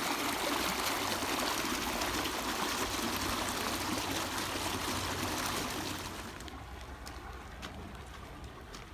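Flood-irrigation water running steadily into the yard, a rushing, trickling flow that falls quieter about six seconds in.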